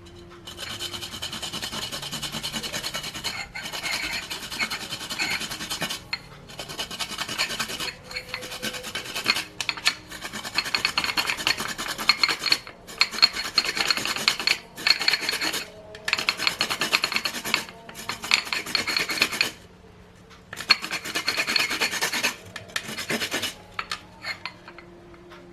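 A piece of roasted kencur (aromatic ginger root) being grated on a hand grater: a rasping scrape of quick strokes, in runs of a few seconds broken by short pauses, stopping near the end.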